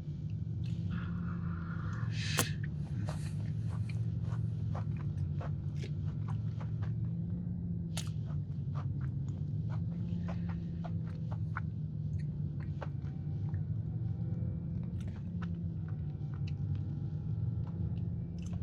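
Close-up chewing and wet mouth sounds of someone eating a soft, gooey chocolate cake batter cookie: many small clicks and smacks over a steady low hum.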